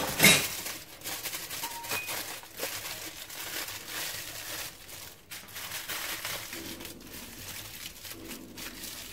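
Aluminium foil crinkling and crumpling as hands fold and squeeze it shut into a tight parcel, with irregular crackles and a louder crackle just after the start.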